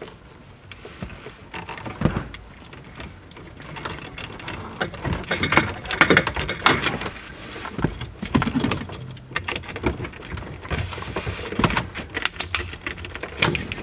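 Hands fitting wiring connectors onto the back of a car's console switches: an irregular run of small clicks, taps and rustles of plastic connectors and wire being handled.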